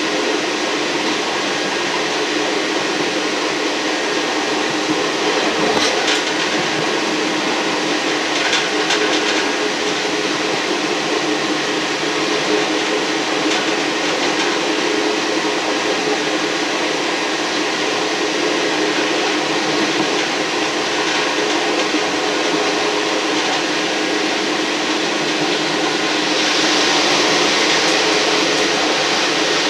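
Running noise of a Class 158-derived diesel multiple-unit railcar on the move, heard from on board: a steady drone with a few brief clicks about six and nine seconds in, growing louder with a hiss near the end.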